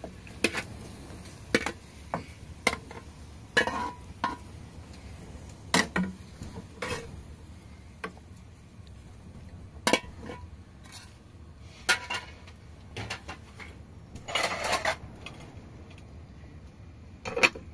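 Metal cooking pots and utensils being handled, with irregular sharp clanks and knocks and a short clatter about fourteen and a half seconds in.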